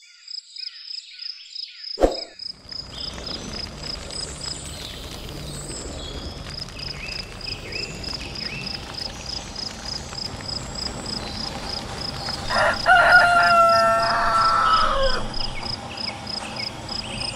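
Rooster crowing once, a long call of about two and a half seconds that falls at the end, over steady insect chirping at about four chirps a second and faint bird calls. A single thump about two seconds in.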